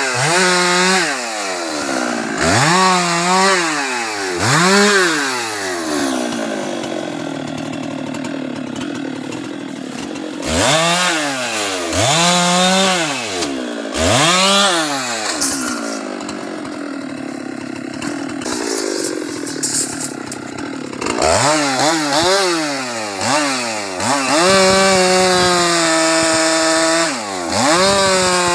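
Husqvarna 390XP two-stroke chainsaw revving up and dropping back again and again, with longer stretches held at high revs while it cuts through a felled teak log.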